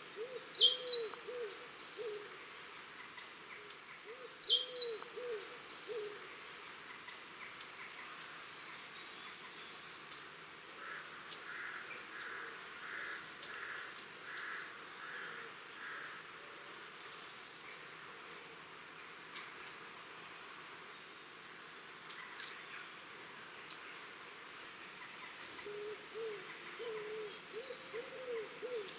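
Long-tailed tits calling, many short, thin, very high contact notes scattered throughout. A low hooting call of a few notes at a time comes in three bouts, at the start, about four seconds in and near the end, and is the loudest sound along with a few sharper falling notes.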